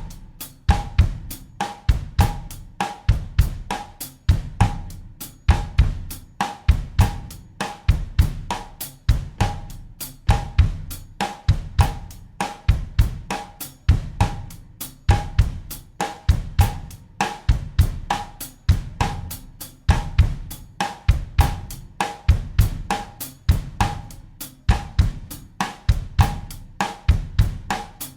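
Acoustic drum kit playing a steady bossa nova groove at 100 beats per minute in 4/4. Even, quick cymbal strokes run over a repeating bass drum pattern.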